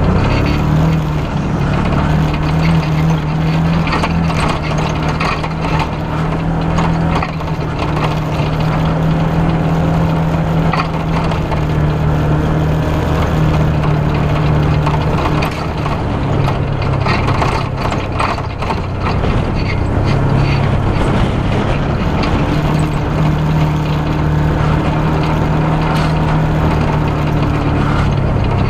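Engine of an off-road side-by-side UTV running as it drives a bumpy dirt trail. The engine note drops in pitch about halfway through and rises again later, with scattered knocks and rattles from the bumps.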